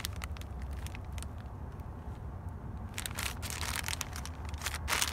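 Clear plastic poly bag around a basketball jersey crinkling as it is handled: a brief crackle at the start, then crinkling again from about three seconds in. A steady low rumble runs underneath.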